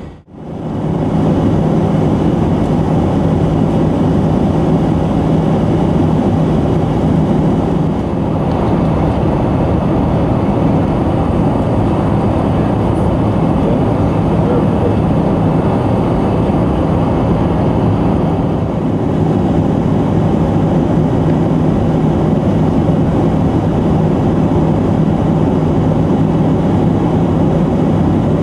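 Jet airliner cabin noise in cruise: a steady rush of engine and airflow noise with a constant low hum, after a brief dropout at the very start.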